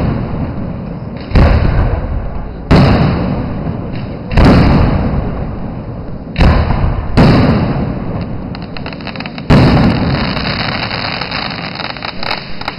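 Aerial firework shells bursting overhead: six heavy booms at uneven intervals of one to two seconds, each rolling away in a long fading rumble, with a few smaller crackles near the end.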